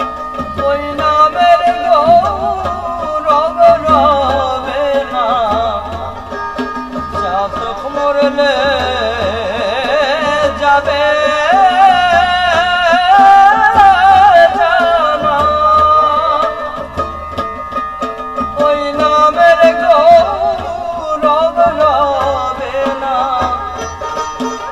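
A man singing a Bengali folk song over harmonium. A hand drum keeps a steady beat about once a second.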